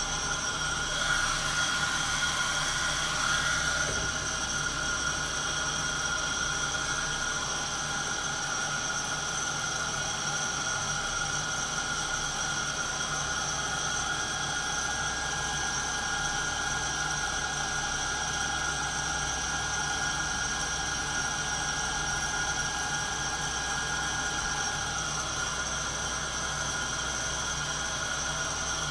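Santoker Q5 coffee roaster running mid-roast: a steady whir with several constant tones over an even hiss. A louder rushing hiss rises about a second in and fades about three seconds later.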